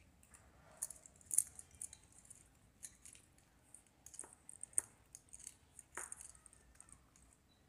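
Faint clicking and scraping of a small screwdriver working the terminal screw of a plastic bulb holder as a wire end is fastened into it, with a few sharper ticks.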